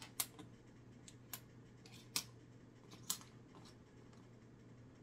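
About six short, sharp clicks of hard plastic Lego pieces being picked up and handled on a wooden tabletop, spaced irregularly, the first the loudest.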